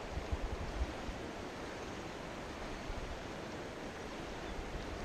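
Steady rushing of a fast river current running over a stony bed. Low wind buffets on the microphone in about the first second.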